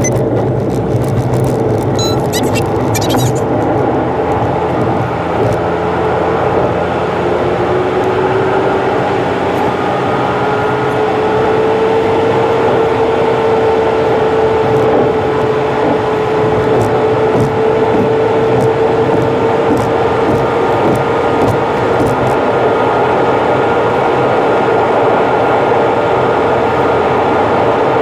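Car driving on an expressway, engine and road noise played back at about three times normal speed. A steady whine rises in pitch about a third of the way in, then holds.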